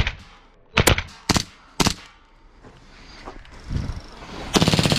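Gas blowback gel blaster pistol firing: a few single shots about half a second apart around a second in, then a rapid full-auto burst of about half a second near the end.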